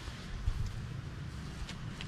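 MSR Reactor canister stove burning with a steady hiss and a low rumble under it, with one soft thump about a quarter of the way in.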